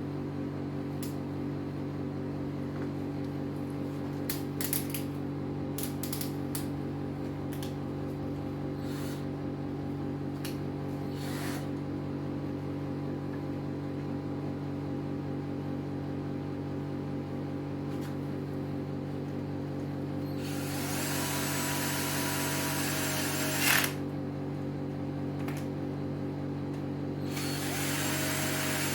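CNC router running, with a steady motor hum throughout. A few clicks come about five seconds in, and two louder stretches of grinding noise follow in the second half, one about three seconds long and one about two, each ending in a sharp click.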